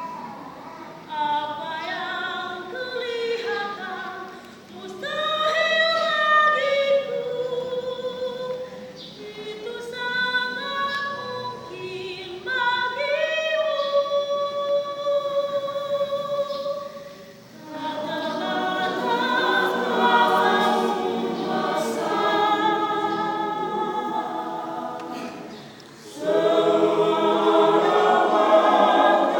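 Church choir singing a hymn: a thinner melodic line at first, then from about two-thirds through a fuller, louder sound with many voices in harmony.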